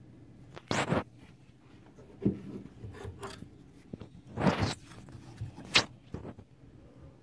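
Handling noise from a hand-held 3D model of a spine: several short rubbing and scraping sounds as it is picked up and turned over.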